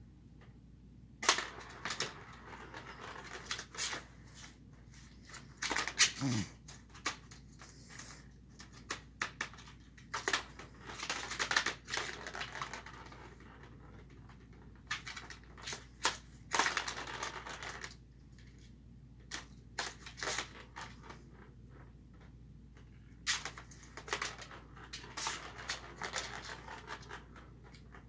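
Plastic ball-track cat toys being batted by cats: scattered sharp clicks and knocks, with stretches of continuous rattling as a ball runs round the plastic track.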